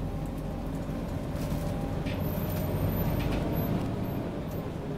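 Scania OmniCity single-decker bus's diesel engine running as the bus drives, heard from inside the passenger saloon as a steady low rumble that grows a little louder around the middle, with a few faint rattles.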